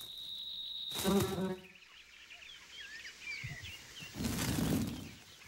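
Soundtrack of insect flight and outdoor ambience: a thin, steady high whine and a short low buzz about a second in, then small birds chirping and a soft rushing sound near the end.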